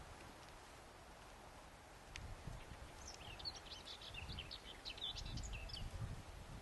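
Small songbird singing: a rapid run of high chirps starting about halfway through and lasting about three seconds, over a low rumble of wind on the microphone.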